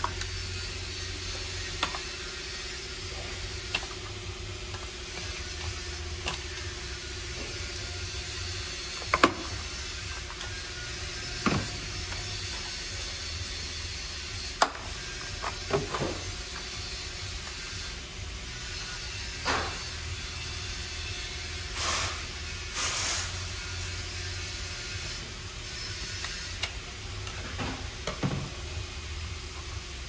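Steady workshop hiss and faint hum, with scattered clicks and knocks as brackets and covers are handled and unclipped in a car's engine bay.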